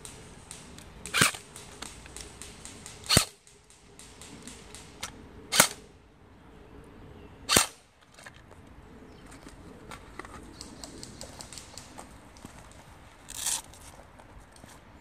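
Airsoft guns firing single shots: four sharp, loud cracks about two seconds apart, then a quieter short rattle near the end, with faint ticking in between.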